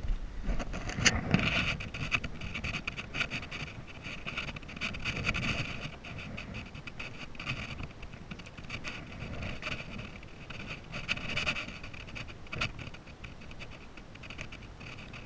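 Close rustling and scratching of hands tying a shoe's laces.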